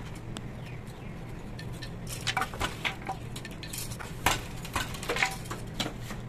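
Parts of a traditional wooden-and-bamboo handloom clicking and knocking as the weaver handles the beater and the bamboo sticks for a floral motif: a dozen or so sharp, irregular clicks and taps, thickest in the second half, the loudest about four seconds in.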